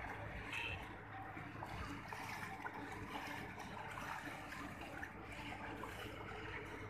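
Water buffalo wading through shallow river water, the water sloshing and splashing around their legs, over a steady low hum.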